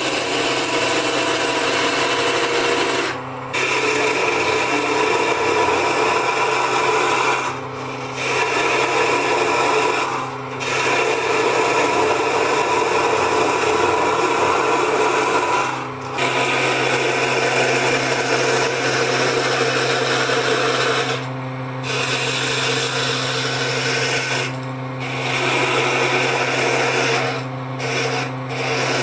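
Wood lathe running with a steady hum while a turning gouge cuts the spinning wooden spindle, a continuous scraping hiss of shavings coming off. The cutting stops for a moment about eight times as the tool lifts off the wood.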